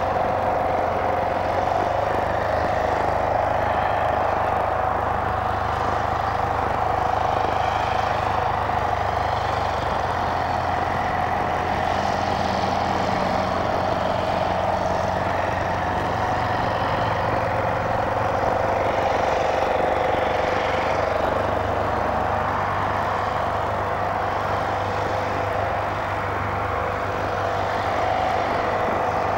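The AT-10 blimp's propeller engines running steadily, a continuous droning hum whose pitch shifts slightly now and then as the crew handle the ship on the ground.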